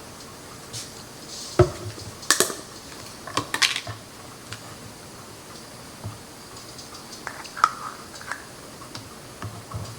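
Kitchen utensil tapping and scraping against a measuring cup and bowl as sour cream is spooned out: a scattering of sharp clicks and taps, the sharpest about one and a half seconds in.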